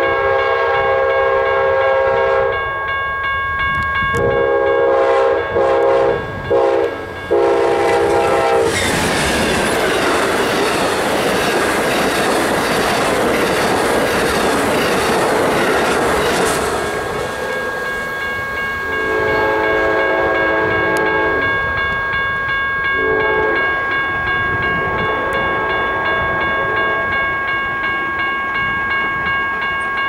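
Amtrak GE P42DC diesel locomotives approaching with the horn sounding a horn show: a long chord, then a run of broken blasts. About a third of the way in the loud rush of the locomotives passing close by takes over for about eight seconds. Then come the rumble and clickety-clack of the passenger cars, with a few more horn blasts. A level-crossing warning bell rings steadily underneath throughout.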